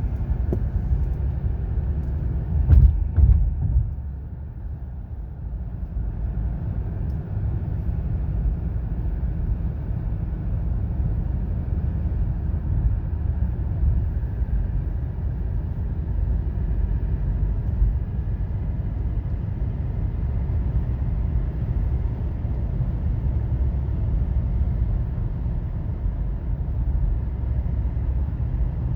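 Road and tyre rumble inside the cabin of a 2017 Acura MDX driving along, with a louder bump about three seconds in.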